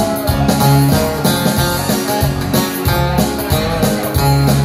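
Instrumental break in an Irish country song: an electric guitar picks a melody over a backing track from a Ketron Audya4 arranger, with a steady bass line underneath.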